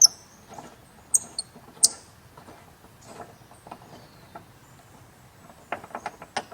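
Light metal clicks and short high-pitched squeaks of hand tools working the hood latch hardware: three sharp squeaks in the first two seconds, then scattered ticks and a quick run of clicks near the end.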